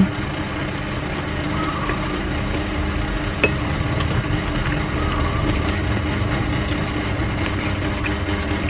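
Steady low mechanical hum of a running motor, with one light click about three and a half seconds in.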